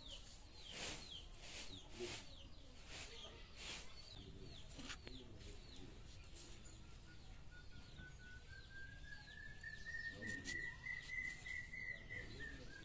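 Faint rural yard ambience. A small bird repeats short falling chirps about twice a second, and hens cluck now and then. There are a few sharp clicks in the first five seconds, and a long whistling tone rises slowly in pitch through the second half.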